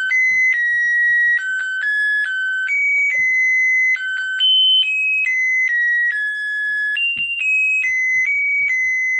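Light-triggered alarm circuit built from an Eureka electronic kit sounding: its music integrated circuit plays a simple beeping melody through the kit's small speaker, single high electronic notes stepping up and down, each held from a fraction of a second to about a second.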